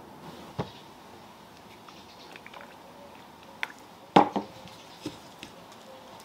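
A few light knocks and taps as potatoes and a plastic squeeze bottle are handled and set down on a wooden cutting board and table. The loudest knock comes about four seconds in.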